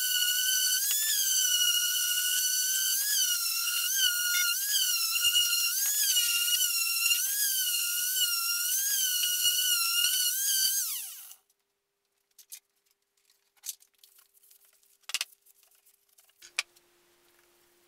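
Electric random orbital sander with 240-grit paper sanding filled, primer-coated MDF: a high whine whose pitch dips and wavers as the sander is pressed and moved over the work. About eleven seconds in it is switched off and winds down with a falling pitch, followed by a few faint taps.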